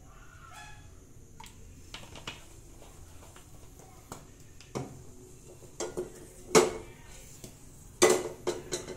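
Sharp metallic knocks and clinks of kitchen utensils against an aluminium kadai on a gas stove, a handful scattered over several seconds. The loudest come about two-thirds of the way in and near the end, followed by a quick cluster of smaller clinks.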